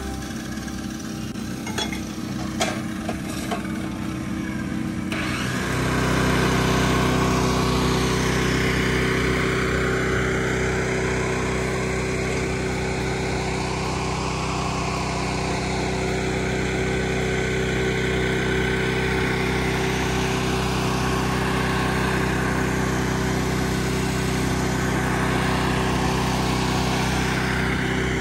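Machinery running steadily, with a few sharp knocks in the first few seconds; the sound grows louder about five seconds in and then holds steady.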